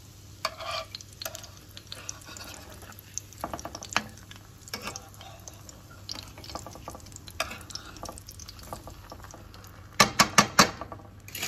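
Shami kebabs shallow-frying in bubbling oil in a pan, with a metal spatula scraping and tapping against the pan as they are turned. A quick run of sharp metal clinks comes near the end.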